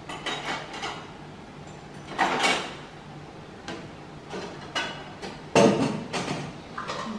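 A metal spoon scraping and clinking against a ceramic soup bowl and plate in a series of short, irregular strokes, the loudest a little over halfway through.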